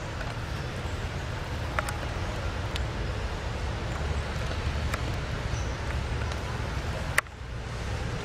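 Steady low rumbling background noise with a few faint sharp clicks, and a louder click about seven seconds in after which the noise briefly dips.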